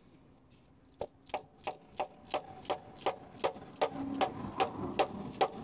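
A hammer striking a block of wood held against a seized front brake caliper, to knock it loose from the disc. Steady blows begin about a second in, about three a second, each with a brief ring.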